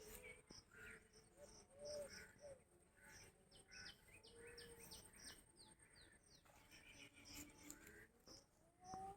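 Faint bird calls: short high chirps repeating throughout, with a quick run of sharply falling notes in the middle.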